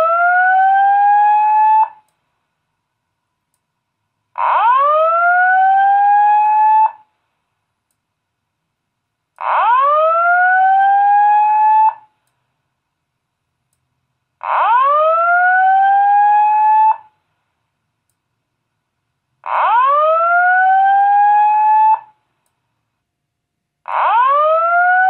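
Simplex speaker strobe (4903-9101 strobe plate with 2902-9712 speaker) sounding a slow whoop evacuation tone: a loud tone sweeps quickly upward and then holds for about two and a half seconds, followed by silence, repeating every five seconds.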